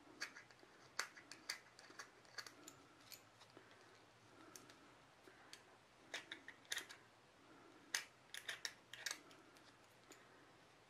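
Hand deburring tool's swivel blade scraping along the edge of a cured epoxy resin piece, paring off small flakes: faint, irregular clicks and short scrapes.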